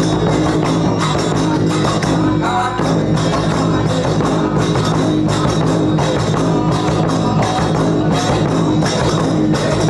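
Instrumental folk-music interlude between sung verses: held, steady notes over regular beating percussion.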